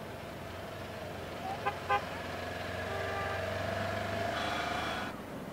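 Polaris Ranger side-by-side utility vehicle's engine running as it drives past, with two short horn toots a little under two seconds in. A whine then rises slightly and cuts off suddenly about five seconds in.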